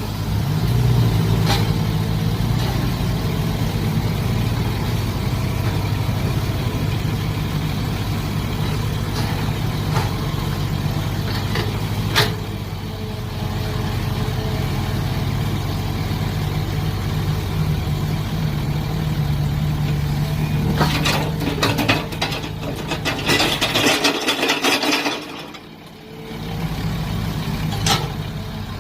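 Mini excavator's engine running steadily, with a few sharp knocks. About three-quarters of the way through comes a burst of harsh scraping noise, then a brief dip in level.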